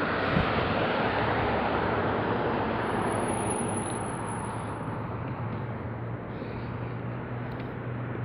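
Road traffic: a steady rush of passing vehicles that swells early and eases off, with a low engine hum coming in about halfway through.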